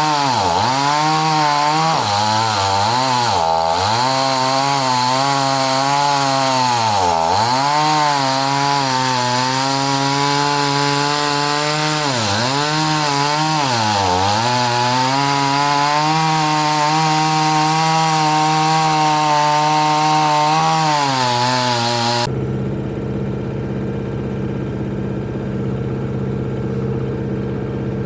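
Chainsaw running at high revs while bucking a log, its pitch dropping sharply several times as the chain bogs down in the cut and then picking back up. About 22 seconds in it switches abruptly to a steadier, lower engine hum.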